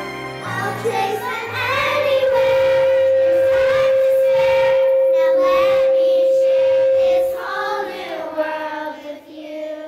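Children's choir singing with a musical backing track. A loud, steady note is held for about five seconds starting about two seconds in, and the singing trails off near the end.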